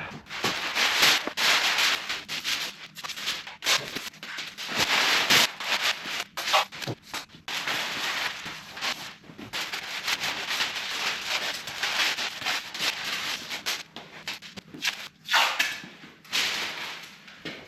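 Masking materials being handled and pressed onto a car body: irregular rustling and crinkling in short bursts.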